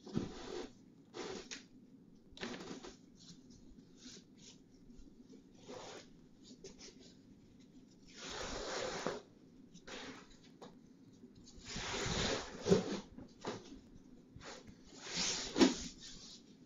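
A plastic bag crinkling and fabric rustling as a dyed tapestry is pulled out and unfolded, in several bouts of rustling; the loudest come about two thirds of the way in and near the end.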